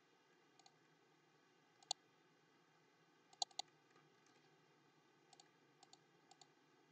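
Computer mouse clicking: about ten faint, short clicks, single and in quick pairs, scattered over near-silent room tone, the sharpest about two and three and a half seconds in.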